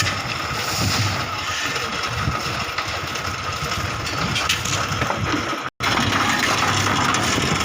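Steady, noisy rumble of a building construction site, cutting out for an instant about three-quarters of the way through.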